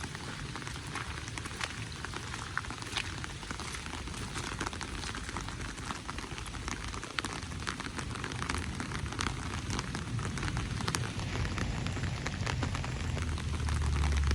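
Rain falling steadily, with many separate drops ticking sharply against the surfaces around. A low rumble grows louder near the end.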